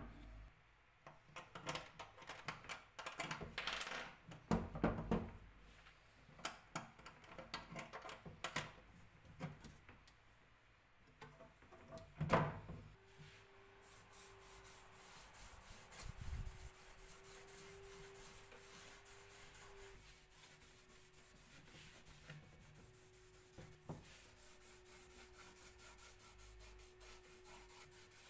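Light metallic clinks and small knocks, with one louder knock about twelve seconds in. After that comes the soft, repeated rubbing of an applicator spreading dark finish over the wooden suitcase's side, with a faint steady tone underneath.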